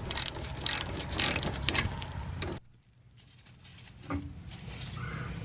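Socket ratchet wrench clicking in quick, irregular strokes with some metal tapping for about two and a half seconds, then the sound cuts off abruptly to a faint background.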